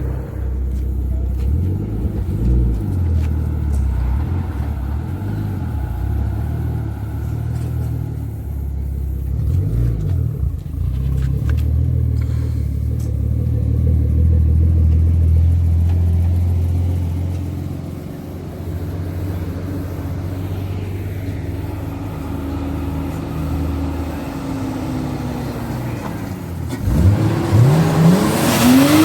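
Car engine running with a steady low drone, easing off about two-thirds of the way through, then revving hard with the pitch climbing sharply near the end.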